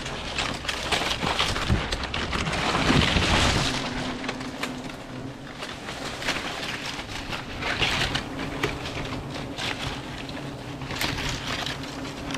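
Close rustling and crackling of leaves and twigs being handled, with swells of louder rustling about three, eight and eleven seconds in. A faint steady hum of wild honey bees runs underneath from about four seconds on.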